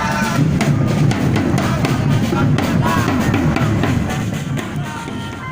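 Music with heavy drumming: bass drum and snare strokes in a steady, busy rhythm, with a melody above them.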